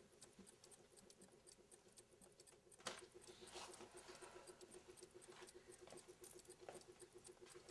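Faint ticking of many wall clocks at once, overlapping into a fast, even patter, with one sharper click about three seconds in.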